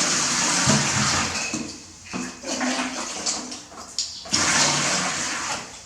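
Bath water rushing and splashing over a baby monkey being washed, in two spells: one at the start lasting about two seconds, and a second beginning about four seconds in.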